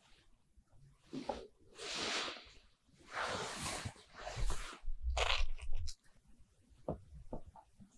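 Crisp bites into deep-fried Lunch Pack sandwich bread: a series of five loud crunches over about six seconds, then softer chewing clicks.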